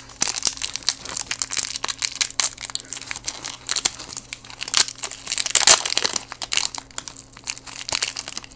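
Crinkling of a foil-lined Kit Kat wrapper being handled and torn open by hand: irregular crackles throughout, with the loudest burst a little past the middle.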